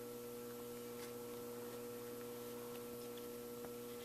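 Steady electrical hum with a faint hiss, broken by a couple of faint clicks, one about a second in and one near the end.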